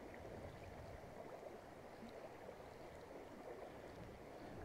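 Faint, steady rush of a small river's flowing water, with a low rumble of wind underneath.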